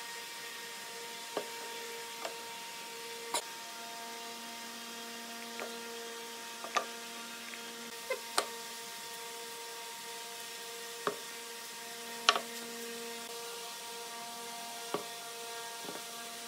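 Light wooden knocks and clicks of pine blocks and a plastic glue bottle being handled and set down on a workbench, about ten at irregular intervals. They sound over a steady electrical hum.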